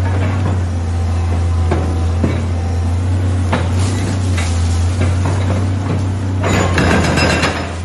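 Excavator demolishing a concrete building: its diesel engine runs with a steady low hum while the arm's attachment breaks concrete in scattered knocks and cracks. Near the end a louder crash of breaking concrete and falling rubble lasts about a second.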